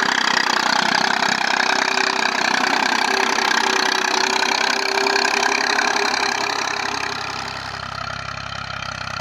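A 1984-model Massey Ferguson tractor's diesel engine running steadily under load while it pulls an 11-tine cultivator. The engine is loud at first and turns fainter about six and a half seconds in.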